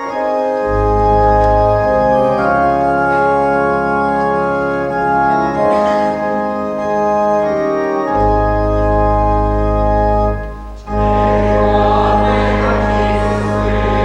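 Church organ playing the introduction to a hymn: sustained chords over a deep pedal bass, with a short break about ten and a half seconds in before the chords resume.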